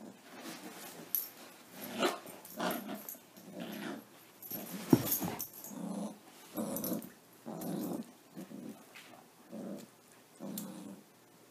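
A Labrador and a puppy play-growling as they mouth and tug a toy: a run of short growls, one after another, with a few sharp clicks and a louder knock about five seconds in.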